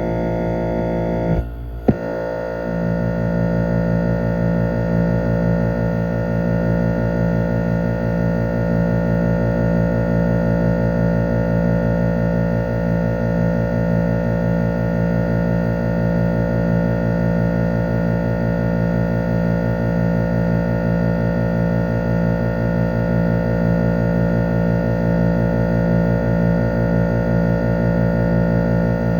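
1967 Chrysler Airtemp Imperial air conditioner running, its Tecumseh AJR 1727 compressor giving a steady hum with many overtones. A short dropout and click comes about two seconds in.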